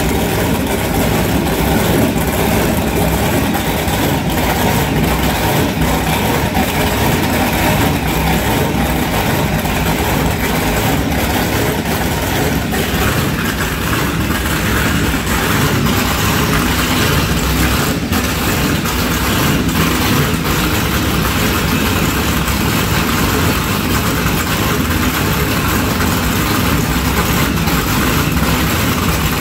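Large powerboat engines running steadily at idle.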